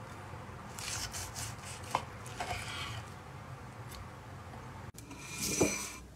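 Kitchen knife sawing through the crust of a seared ribeye steak on a wooden cutting board: several short rasping strokes with a sharp tap about two seconds in, as the blade meets the board. A louder scrape comes near the end.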